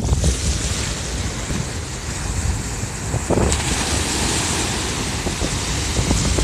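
Ocean surf breaking on the beach, a wave crashing and washing up in foam, its hiss growing louder about three and a half seconds in. Wind buffets the microphone underneath.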